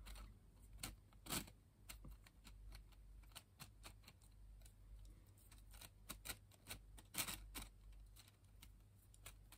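Faint, irregular clicks and clacks of 3D-printed plastic puzzle pieces knocking and sliding against each other as they are handled and turned.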